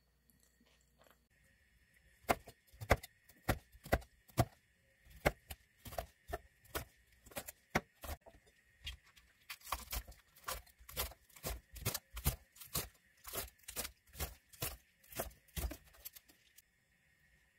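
Chef's knife chopping green chili peppers and green onion on a wooden cutting board: a steady run of sharp chops starting about two seconds in, about two a second at first and quickening to about three a second midway.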